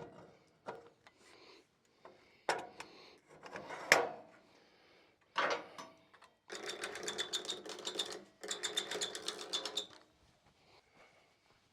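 Sawmill log handling while a post oak log is turned on the bandsaw mill: a string of wooden and metal knocks and thumps, the heaviest about four seconds in. Then a hand-cranked ratchet clicks rapidly and evenly in two runs, a long one and a shorter one.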